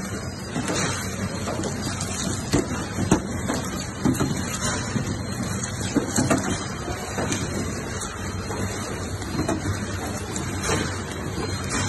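Horizontal flow-wrap packaging machine running, a steady mechanical hum with scattered clicks and knocks from its moving parts.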